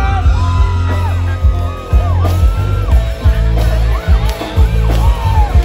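Live band playing a song through a loud PA: heavy bass and drums with electric guitar, a male voice singing held, gliding notes over it, and the crowd cheering now and then.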